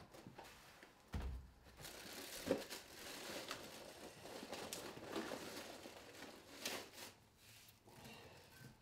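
Paper crinkling and rustling as the inner wrapper of a wheat biscuit cereal box is opened and biscuits are taken out, with a dull thump about a second in and a few light clicks.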